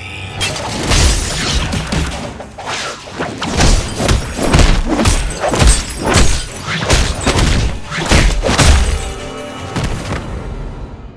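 Designed fight sound effects over music: a rapid run of hard hits, thuds and booms, with shattering.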